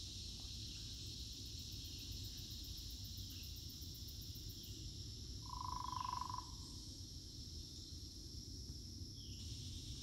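Outdoor nature ambience: a steady high-pitched insect chorus over a low rumbling background, with one loud, pitched animal call lasting under a second a little past halfway.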